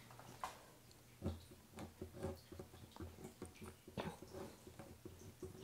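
Faint scraping and sticky ticking of a small scraper tool pressing and spreading cold wax and oil paint across a painting panel, in irregular short strokes with a few sharper clicks.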